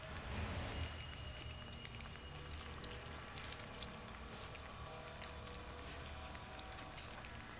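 Several Chihuahua puppies lapping milky liquid from a plate: faint, quick, irregular wet licking clicks, over a low steady rumble.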